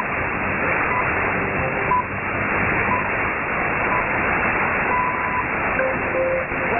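BBC World Service time-signal pips received on shortwave through heavy noise: five short pips one second apart, then a longer sixth pip marking the top of the hour.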